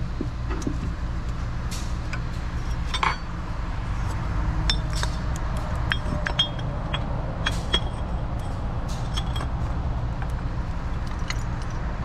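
Small metallic clinks, taps and scrapes as a thermostat and its housing are worked into place by hand, over a steady low hum.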